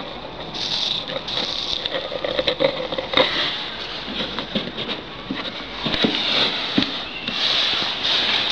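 Bird seed husk-separating machine running, the seeds rattling and crackling inside it as a steady stream of small irregular clicks.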